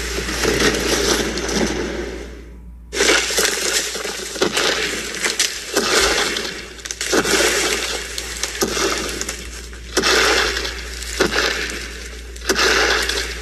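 Crunching and crackling: a dense run of snaps and cracks over a steady low hum, cutting out briefly about two and a half seconds in.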